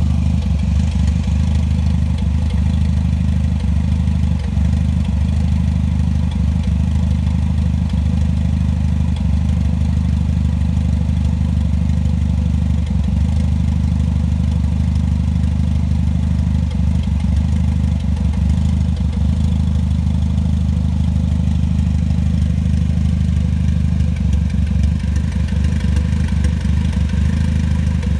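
Toyota 3S-GTE (third generation) turbocharged four-cylinder idling warm, with a short stumble breaking the steady idle now and then at uneven intervals. This is the strange misfire at idle that shows up after warm-up.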